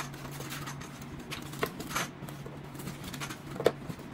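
Wooden slats of a legged mattress being handled and knocked together: scattered light clicks and knocks, with one sharper knock near the end, over a steady low hum.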